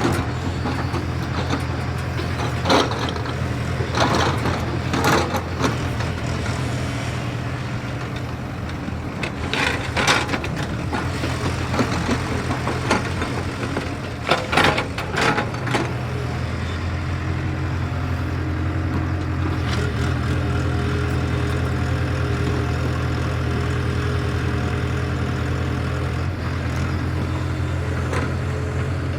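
JCB excavator's diesel engine running steadily, with several sharp metal clanks and knocks from the working machine in the first half. About halfway through, the engine note rises a little and holds steady.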